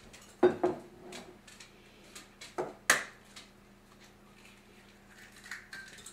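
An egg being cracked on the metal bowl of a stand mixer: two pairs of sharp taps, about half a second in and again just before three seconds, then faint handling sounds as the shell is pulled apart.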